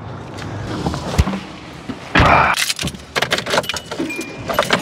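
Handling noises: scattered clicks and rattles, with one louder rushing scrape about two seconds in and a quick run of small clicks near the end.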